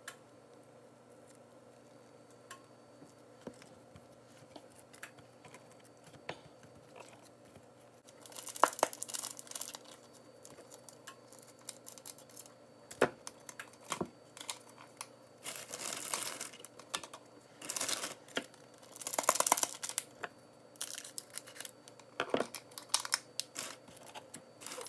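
Crinkling and tearing of an ingredient packet being handled and cut open with kitchen scissors, in many short bursts starting about eight seconds in; before that only a few faint clicks.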